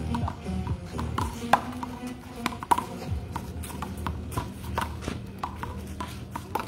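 Irregular sharp smacks of a handball being struck by hand and rebounding off a concrete wall and court during a one-wall handball rally.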